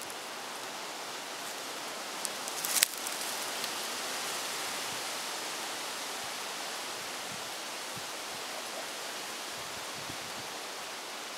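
Steady, even outdoor hiss, with one sharp click about three seconds in.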